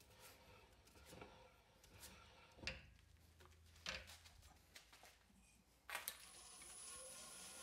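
Faint handling of a wooden blank on a stopped wood lathe, with a few sharp knocks, the loudest about four seconds in. About six seconds in, the Laguna Revo lathe is switched on: a steady motor hum with a faint rising whine comes up.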